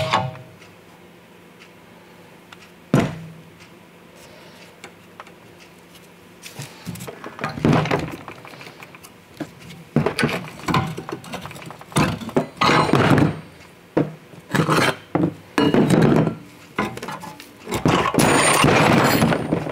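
Steel suspension parts and spring compressor clamps being handled on a wooden workbench while a coil-spring strut is taken apart: a sharp knock about 3 s in, then a run of irregular clanks, scrapes and rattles, busiest near the end.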